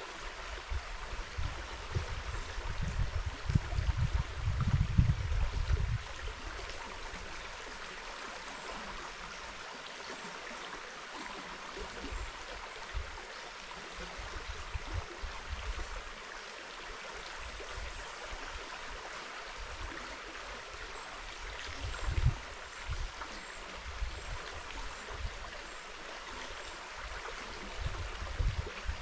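River water flowing, a steady rushing hiss, with low rumbling buffets on the microphone from about one to six seconds in and again briefly around twenty-two seconds.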